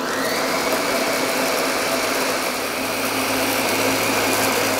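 Countertop blender switched on and running steadily on passion fruit pulp with its seeds. It is a short run meant to loosen the juice while leaving the seeds whole.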